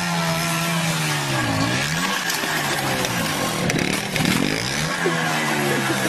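Motorcycle engine running, its pitch dropping and climbing again a couple of times as the revs fall and rise.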